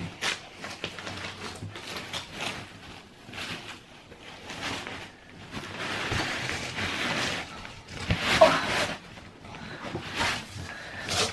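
Rustling and crinkling of a non-woven fabric dust cover being pulled off a new upholstered chair, with some scuffing against the cardboard box, in irregular bursts.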